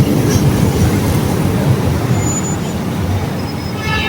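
Steady road traffic rumble from passing vehicles.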